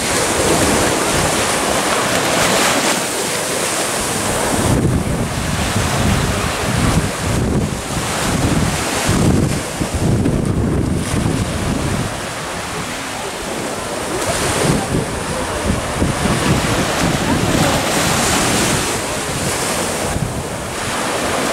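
Surf washing on a sandy beach, with wind buffeting the microphone in uneven gusts, heaviest in the middle.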